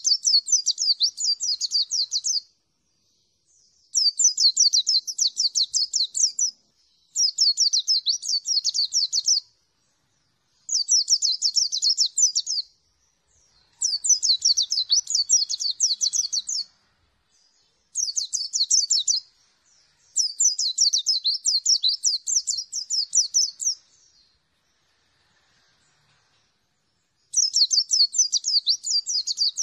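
White-eye (pleci) singing in repeated bouts of rapid, high twittering. Each bout lasts two to three seconds and there are about eight in all, separated by short pauses, with a longer pause near the end.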